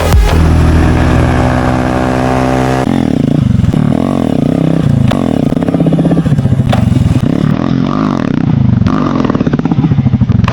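Motorcycle with an SC Project full-system exhaust on a 125 cc Honda CB Shine single-cylinder engine, running steadily for about three seconds. It is then revved up and down repeatedly in quick throttle blips.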